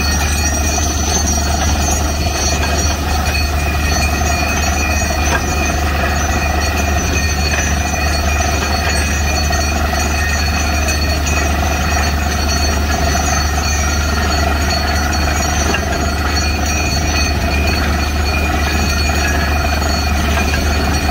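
Truck-mounted DTH borewell drilling rig running steadily while drilling: a constant low drone with a steady high-pitched whine over it.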